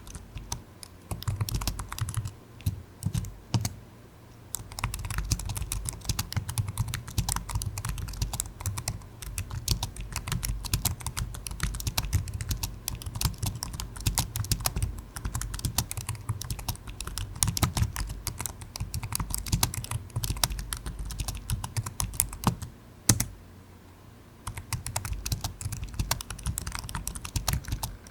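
Fast, continuous typing on a computer keyboard: rapid key clicks with a few brief pauses, and one harder, louder keystroke late on followed by a short lull.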